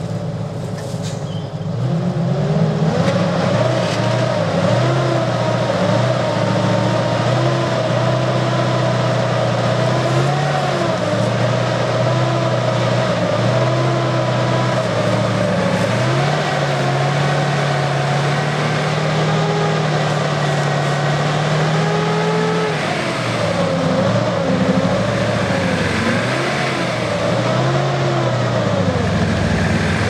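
Car engine revving hard under load as a Lada Niva stuck in bog mud is pulled out on a tow cable, the engine note holding fairly steady, then rising and falling repeatedly over the last several seconds.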